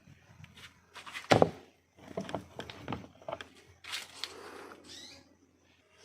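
Knocks and scraping from a whole fish being handled and cut with a knife on a board, with one louder thump about a second in and a longer scraping stretch near the end.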